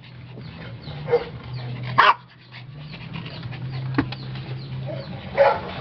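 Small dog barking in short, sharp calls, one loud bark about two seconds in and a few fainter ones around it, over a steady low hum.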